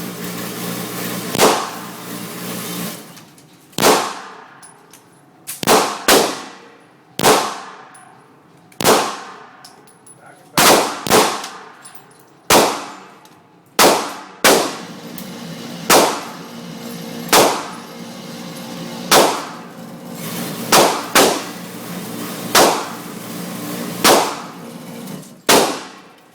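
Beretta pistol fired about twenty times at an unhurried, uneven pace, one to two seconds between most shots with a few quick doubles, each shot echoing briefly.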